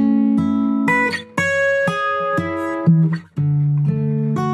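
Background music of plucked acoustic guitar notes, breaking off briefly twice between phrases.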